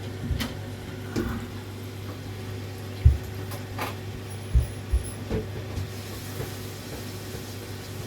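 Potterton Suprima gas boiler restarting after a reset, running with a steady low hum. A few faint clicks and several short low thumps come through it, the loudest about three seconds in.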